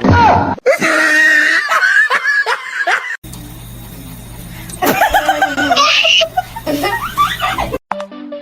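People laughing, with music, in two short stretches broken by a sudden cut about three seconds in. The second stretch begins over a steady low hum.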